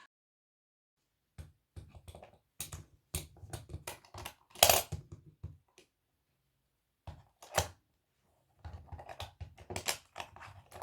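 Light clicks and clacks of a wooden latches board being handled: small latches and doors being worked, in two spells of scattered taps with a pause between them, the loudest clack a little under five seconds in.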